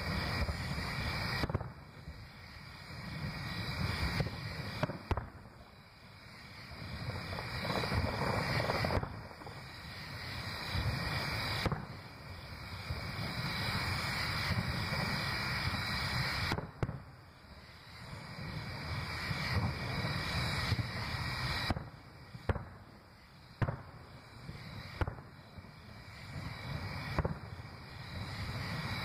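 Aerial fireworks bursting: booms that swell and fade in long, low rumbles one after another. Sharp single cracks come now and then, several of them in the second half.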